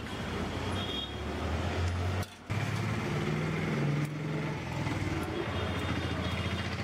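Street traffic: motor vehicle engines running close by, a steady low hum that breaks off briefly a little over two seconds in.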